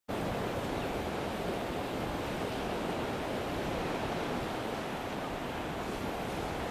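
Steady wind rushing over the microphone: an even hiss at a constant level with irregular low buffeting.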